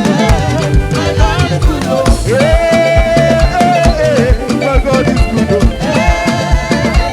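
Upbeat African gospel band music with a steady drum beat, and a long held melody note in the middle.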